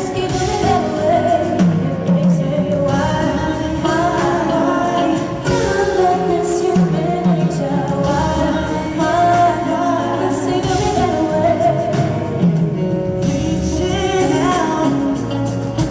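Live pop ballad: a female singer sings a gliding melody over a steady backing band.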